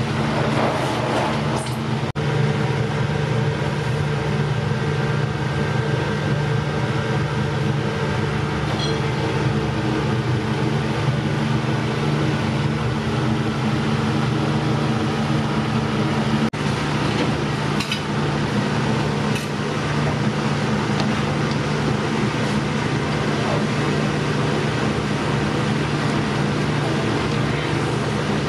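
Steady mechanical drone with a low hum from a kitchen stove and ventilation, running under a large aluminium stockpot of boiling water, with a few faint clinks.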